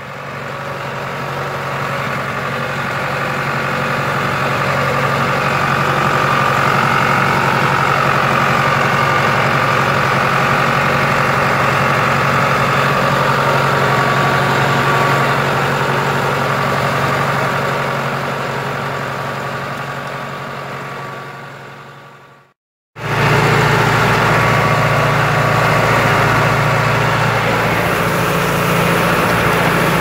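John Deere farm tractor engine running steadily under way, heard from the operator's seat. About three quarters through it fades out to a brief silence, then a tractor engine runs steadily again at a slightly different pitch.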